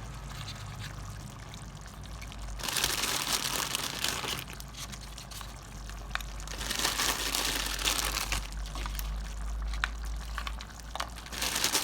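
Water crackers being handled and added to a pot of simmering coconut milk: crinkling and crunching in a few louder spells with small clicks, over a hissy background.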